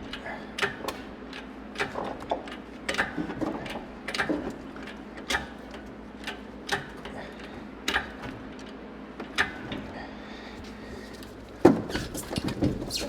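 Engine hoist (cherry picker) being pumped to lift a car engine, a metallic click or clank with each stroke, spaced about once a second. Near the end comes one loud clunk with a brief clatter as the engine shifts on its mounts.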